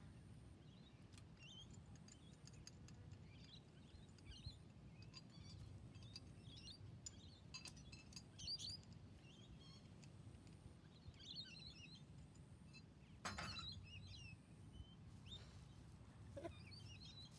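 Faint birds chirping here and there, scattered short calls, with one sharp click about thirteen seconds in.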